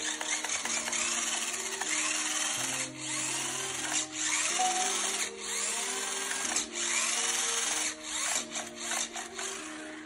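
The electric drive motor and gearbox of a small 2WD RC rock crawler whining as its wheels spin freely in the air, the pitch rising and falling with the throttle and stopping briefly every second or two.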